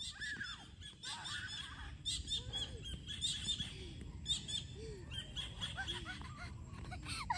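Birds chirping in many quick, repeated high calls, over a steady low rumble.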